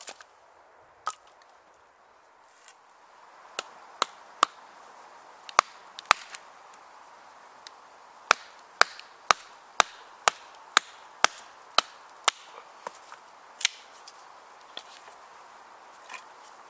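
Wooden baton striking the spine of a knife to split a stick of deadwood: a series of sharp knocks, scattered at first, then a steady run of about two a second in the middle, thinning out near the end.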